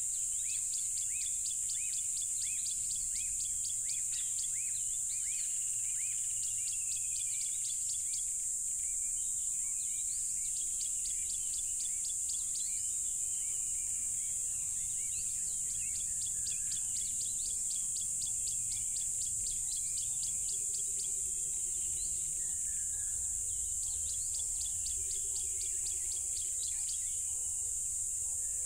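Loud, steady chorus of crickets, one continuous high-pitched trill, with birds chirping in quick repeated notes over it.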